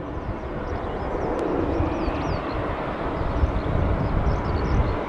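Distant Boeing 747-400F freighter's four jet engines, a steady low rumble growing slowly louder at the start of its takeoff.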